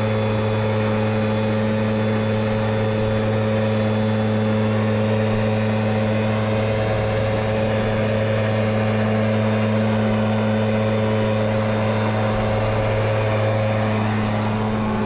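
Gas backpack leaf blower running at a steady speed, a constant engine drone over rushing air, blowing powdery snow.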